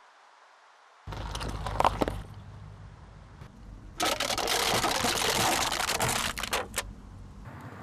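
A car tyre rolling over and crushing objects: a few sharp cracks a little under two seconds in, then a loud, rough crunching noise lasting nearly three seconds.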